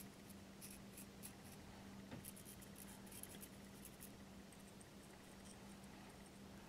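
Near silence: faint light scratching and small ticks of a thin applicator and fingers working along the edge of a porcelain piece, over a steady low hum.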